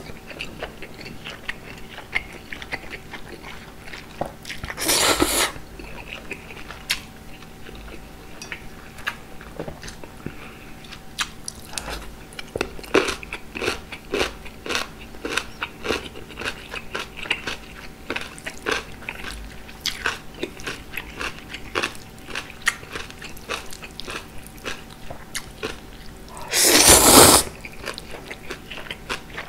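Buckwheat noodles in perilla oil slurped up loudly, once about five seconds in and again near the end, with close-miked chewing and wet mouth clicks in between.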